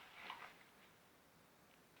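Near silence, with a couple of faint soft clicks in the first half second.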